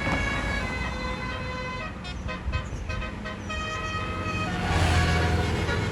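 Bus telolet (basuri) horn playing a tune of held and quick stepped notes, over the low running of a bus engine.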